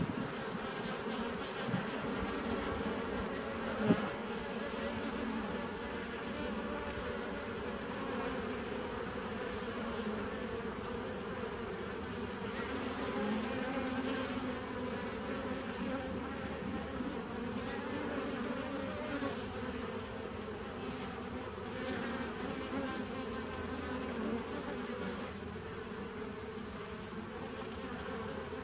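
Honey bees buzzing at the entrance of a nucleus hive: a steady, wavering hum of many wings as bees fly in and out. A single short knock about four seconds in.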